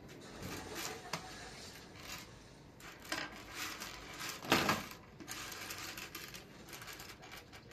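Loose plastic keycaps from a Dell KB216 keyboard clattering against each other and a wooden table as hands sweep and heap them into a pile. The sound is a run of small clicks, with the loudest burst of rattling about halfway through.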